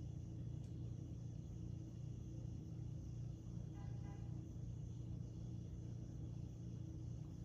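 Quiet room tone: a steady low hum, with a brief faint tone about four seconds in.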